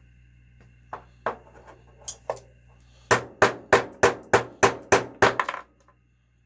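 Hammer blows on metal engine parts: a few scattered taps, then a quick run of about eight hard, evenly spaced strikes, roughly three a second, knocking a seized bearing out of a Traxxas Pro 15 nitro engine.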